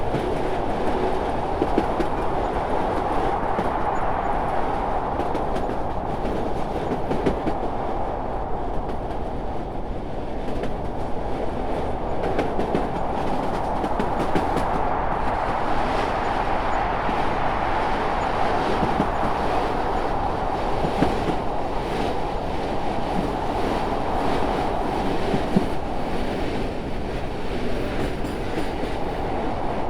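Train running on rails: a steady rumble with scattered clicks of the wheels over the track.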